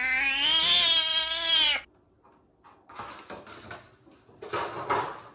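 A long, drawn-out meow that ends about two seconds in, followed by a few seconds of faint scratchy noises.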